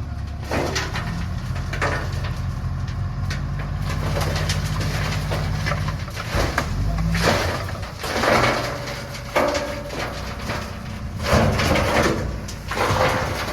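Heavy diesel engine running at a steady speed, joined in the second half by irregular louder surges and clatter.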